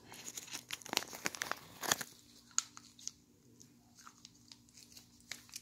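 Plastic packaging bag crinkling and crackling as someone tries to tear it open by hand, busiest in the first two seconds, then dying down to a few scattered small clicks.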